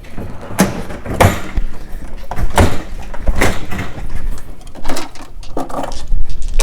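A series of about six knocks and clunks, a second or so apart, from handling a pinball machine as it is being readied to switch on.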